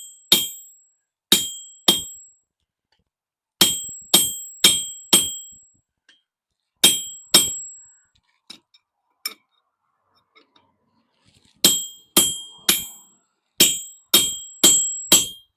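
Hammer blows on a hand punch driving a hole into a hot steel bar on the anvil. The strikes come in quick groups of two to four with pauses between, and each one rings with a clear metallic tone.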